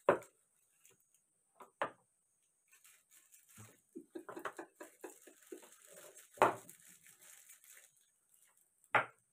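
Wooden chess pieces knocked down onto a wooden board as moves are made: four sharp knocks, one at the start, one just before two seconds, the loudest about two thirds of the way through and one near the end. In the middle a plastic wrapper crinkles and rustles.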